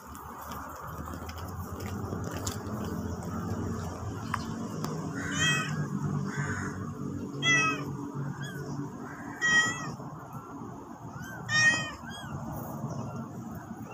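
Cat meowing: four loud, high-pitched meows about two seconds apart, with softer short rising chirps between them, over a low steady hum.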